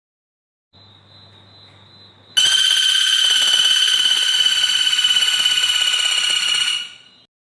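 A small songbird singing one long, rapid, buzzy trill at a steady high pitch, starting abruptly about two and a half seconds in and cutting off near the end, with a faint thin high note before it.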